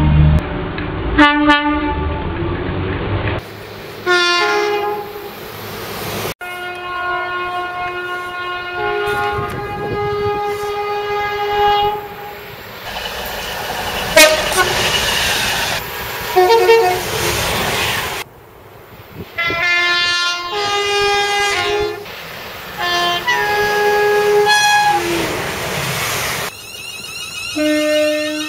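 British train two-tone horns sounding in a string of short spliced recordings, each giving sustained high and low notes. Some blasts last a second or two, and under some of them is the noise of a passing train.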